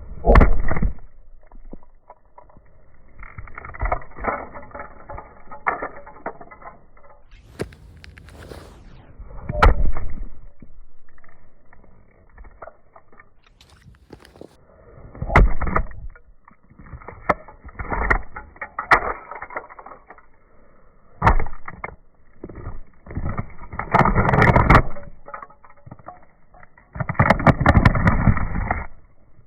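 Rubber-soled safety shoes stomping on a small toy car and grinding it against asphalt: repeated bursts of gritty scraping and crunching with sharp cracks and thuds, several seconds apart.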